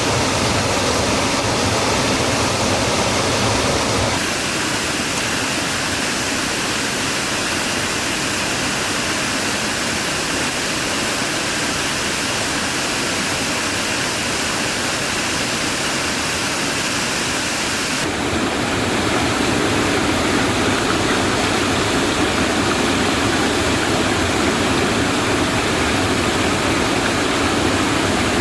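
Steady rush of falling water at a waterfall or stream. Its tone shifts abruptly about four seconds in and again about two-thirds of the way through.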